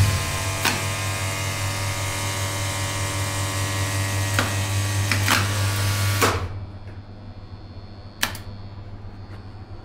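Hydraulic elevator machinery under a 1985 Thyssen relay controller: a loud mains hum with a hissing motor-and-pump noise, punctuated by sharp relay and contactor clicks. About six seconds in, the hum cuts off with a click as the pump stops. One more relay click follows about two seconds later.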